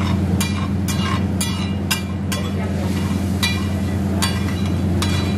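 Metal spatula clanking and scraping against a large iron tawa while chicken in gravy cooks on it, in sharp ringing strikes about every half second. A steady low hum runs underneath.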